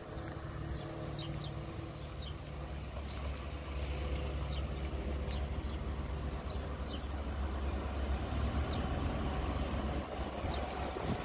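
Diesel traction of an approaching Network Rail test train: a steady low engine drone that grows gradually louder as the train draws nearer.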